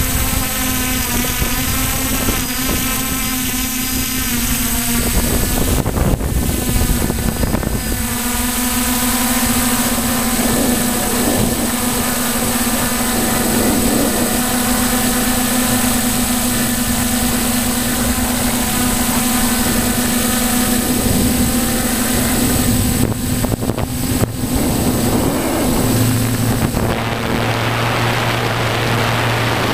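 DJI Flamewheel multirotor's electric motors and propellers whining steadily, heard from the GoPro on board, with wind noise on the microphone. The pitch of the whine shifts a few times, about five and eight seconds in and again near the end.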